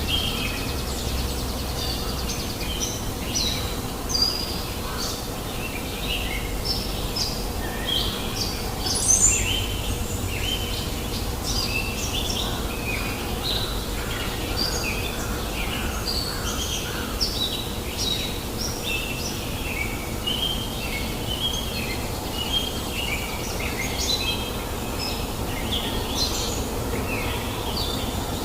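Many wild birds chirping and calling in quick, overlapping short notes, with one louder rising call about nine seconds in, over a steady rush of flowing river water.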